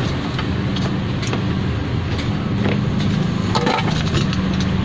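A few light clicks and clinks of small metal screws being handled, over a steady low hum.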